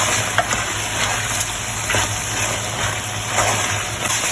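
Sambal cooking in a pan with sliced onions just added: a steady sizzle and bubble, with a few faint clicks.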